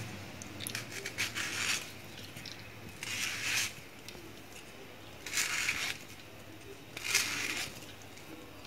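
A small kitchen knife cutting into a peeled mango held in the hand, four short scraping cuts spaced roughly two seconds apart.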